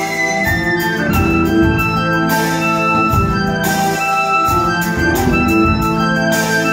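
Live jazz-fusion band playing: an electric violin lead over sustained keyboard chords and guitar, with loud ensemble hits every second or two.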